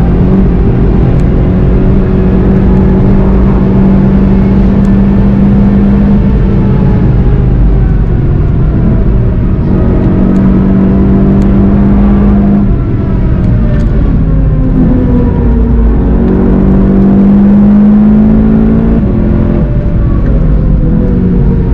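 VW Golf 7 GTI TCR's turbocharged 2.0-litre four-cylinder engine heard from inside the cabin, pulling hard at high speed, its note shifting in pitch a few times as the driver lifts and comes back on the throttle. Near the end the pitch falls as the car brakes down to a slower speed.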